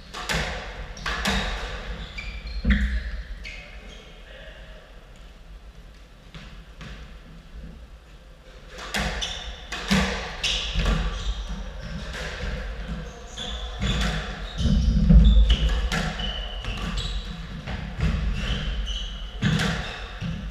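Squash rally: the rubber ball smacks off rackets and the court walls in sharp hits, with shoes squeaking on the wooden floor. There are a few hits at first, some quieter seconds, then a longer run of rapid hits and squeaks from about nine seconds in.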